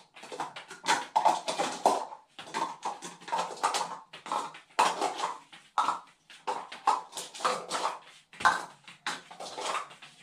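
Small plastic cups clattering and knocking as a dog picks them up in its mouth one by one and they are taken from it: a busy run of quick clicks and taps.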